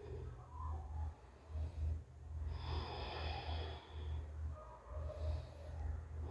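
One deep breath through the nose, about two and a half seconds in and lasting just over a second, with a thin whistling edge, taken as a slow deliberate breath in a lateral segmental expansion breathing exercise. A low pulsing hum sits under it.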